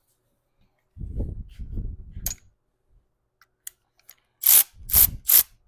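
Hand tools being handled on the truck: a low rattle about a second in, a few sharp clicks, then three loud clacks in quick succession near the end.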